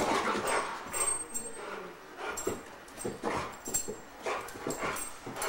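Three-legged boxer dog whimpering and yipping excitedly as he chases a laser dot, with a string of short, sharp, irregular sounds as he lunges.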